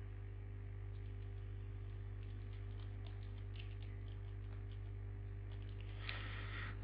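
Steady low electrical mains hum with faint, scattered computer keyboard key clicks as text is typed. A brief hiss comes near the end.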